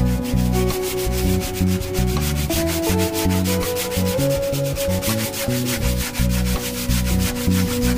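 Sandpaper on a hand-held wooden sanding stick rubbed quickly back and forth along the edge of a wooden board: an even rasp, stroke after stroke. Background music plays underneath.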